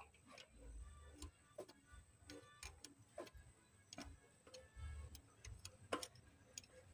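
Faint, irregular clicks and light taps of metal parts being handled at an engine's timing belt and camshaft sprocket.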